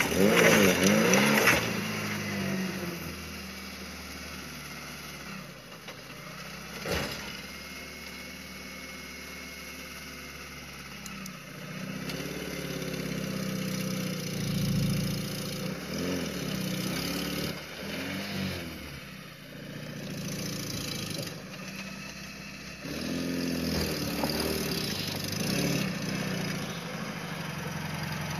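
Suzuki Samurai's small four-cylinder engine crawling over rocks, revving up and down in short pulls with low idling between. The loudest rev comes right at the start, and a single sharp knock sounds about seven seconds in.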